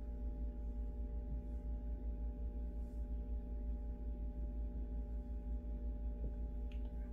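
A steady hum of several held tones over a low rumble, unchanging throughout.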